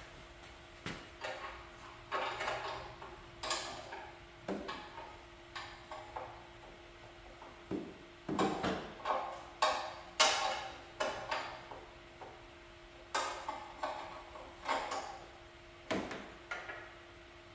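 Irregular metallic clicks and clanks of a hand wrench working at the oil drain plug on the engine's front sump, in short clusters that are loudest around the middle, over a faint steady hum.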